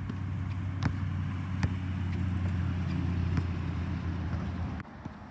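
A basketball bouncing on an outdoor court court: a few separate sharp thuds, over a steady low hum that cuts off near the end.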